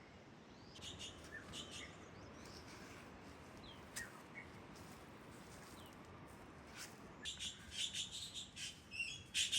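Small birds chirping with short, high calls, sparse at first and busier over the last few seconds, with a single sharp click about four seconds in.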